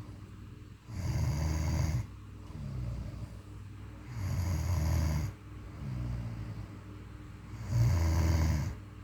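Snoring: three loud low snores, each about a second long and about three and a half seconds apart, with softer snoring breaths between them.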